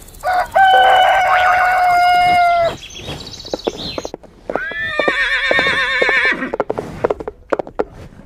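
Farm-animal sound effects: a long, steady rooster crow, then a horse whinnying with a wavering pitch, with scattered clip-clop hoof clicks.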